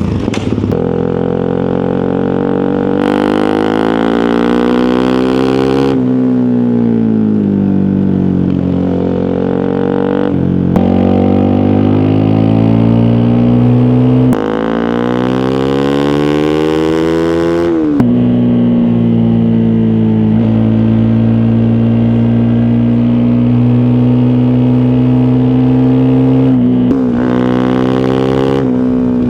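Honda CRF250 Rally's single-cylinder 250 cc four-stroke engine under way, revs climbing and dropping sharply several times as it shifts through the gears, then holding steady at cruising speed for several seconds before another change near the end.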